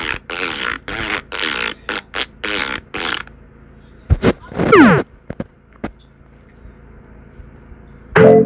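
A quick string of about ten short fart-like noises in the first three seconds, then a couple of clicks and a quick falling whistle-like glide about five seconds in.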